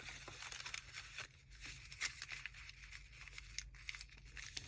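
Faint rustling and light taps of paper pages being handled and folded, over a low steady room hum.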